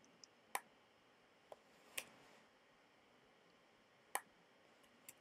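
Computer mouse clicking: about five short, sharp clicks spread out with near silence between them.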